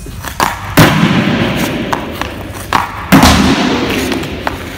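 Two ice hockey shots: each a light click of the stick on the puck, then about half a second later a loud thud as the puck strikes at the far end, echoing through the ice arena.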